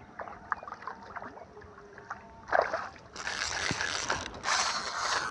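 Fishing reel clicking as the line is worked, with three short bursts of splashing water from the hooked fish in the second half.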